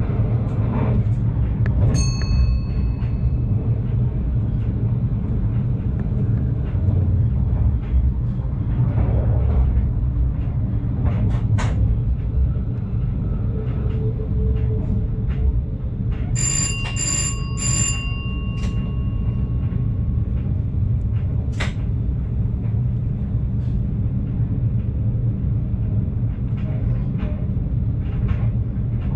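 Stadler GTW train running along the track: a steady low rumble with scattered clicks from the rails. A single bell-like ding comes about two seconds in, and three quick dings come about halfway through.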